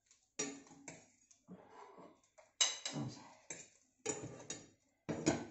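A metal fork scraping and tapping against a nonstick frying pan, about a dozen short clicks and scrapes, a few with a brief metallic ring, loudest a little past halfway. The fork is working the tortilla loose from the pan so it doesn't stick.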